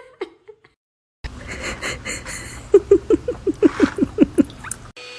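A cat chattering: a quick run of about ten short, falling chirps over a second and a half, over steady background noise.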